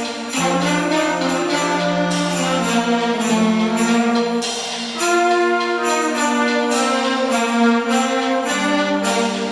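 School band playing a seasonal tune: sustained brass and wind chords with sleigh bells ringing along in a steady beat.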